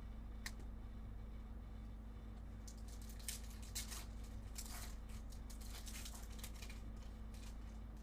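Foil wrapper of a Bowman Chrome trading card pack crinkling and tearing as it is opened and the cards handled, in a series of short rustles after a single click, over a faint steady hum.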